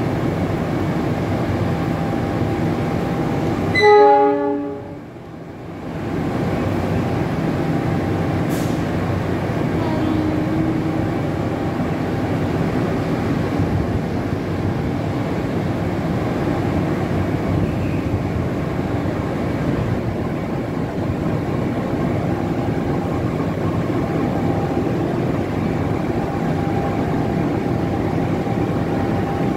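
CC 206 (GE C20EMP) diesel-electric locomotive running as it creeps along the platform track, its engine a steady rumble. About four seconds in it gives one short, loud horn blast.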